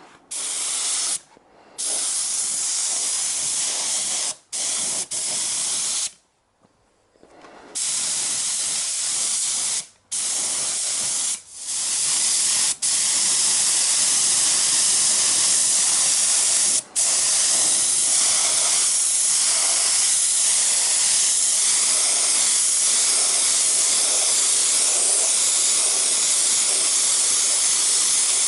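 Air-fed paint spray gun hissing as coating is sprayed: a string of short trigger pulls with brief gaps over the first dozen seconds, then one long steady spray broken once by a quick release.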